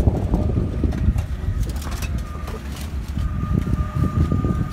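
Open-air market ambience on a handheld phone microphone while walking: a heavy, uneven low rumble with faint voices in the background. A thin steady high tone comes in about two seconds in.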